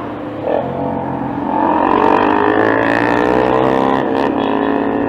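Small motorcycle engine accelerating, its pitch rising over the first couple of seconds and then holding steady as the bike runs on.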